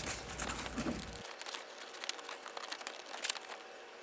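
A stiff paper folder template being cut out and handled, crinkling and rustling with scattered small clicks.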